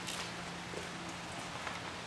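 Steady background hiss with a faint low hum under it and a few light ticks, one just after the start.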